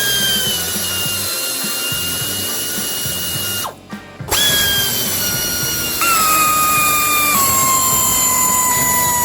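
Hand-held power tool motor, such as a drill or driver, whining in two long runs with a short pause between them. The pitch sags gradually, then drops in two steps during the second run.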